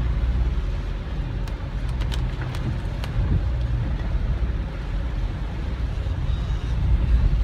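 Steady low rumble of a car driving on a wet road, heard from inside the cabin. A few sharp clicks come between about one and a half and three seconds in.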